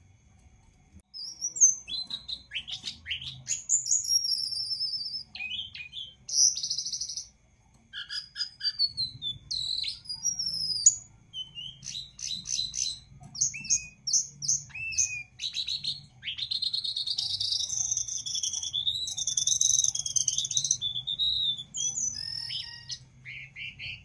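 Caged jongkangan, a small babbler, singing vigorously: a varied run of high whistles, quick chirps and rising and falling notes, with a brief pause about a third of the way in and a longer warbled phrase near the end.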